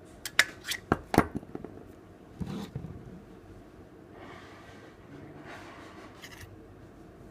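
Handling noises: a quick run of sharp clicks and knocks, then scraping and rustling.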